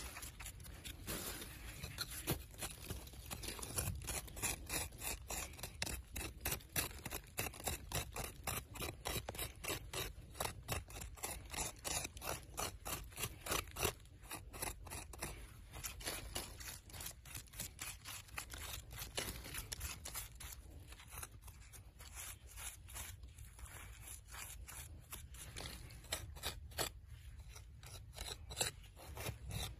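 A hand tool scraping and digging into loose, gritty soil in quick repeated strokes, a few a second.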